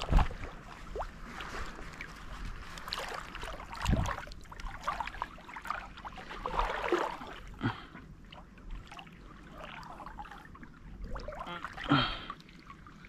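Water splashing and trickling, irregular and close by, with sharp knocks about four seconds in, at about seven and a half seconds, and a louder one near the end.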